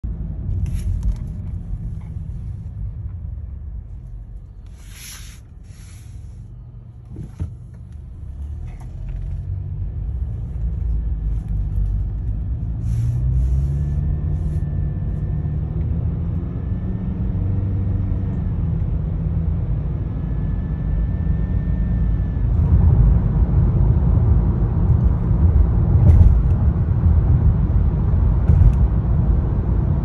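Cabin sound of a 2013 Honda Accord Sport with a CVT under way: steady engine and road rumble that rises in pitch as the car accelerates and grows louder toward the end. A faint high whine comes and goes while accelerating, the unexplained noise the owner hears every time the car speeds up.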